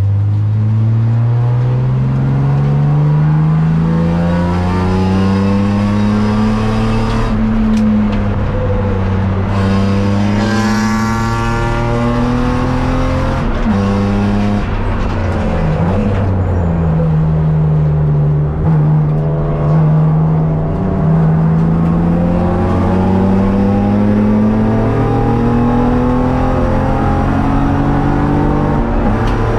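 BMW race car's engine at sustained high revs, heard from inside the stripped-out cabin, its pitch climbing slowly through long pulls. About halfway through the pitch drops, holds lower for a few seconds, then climbs steadily again.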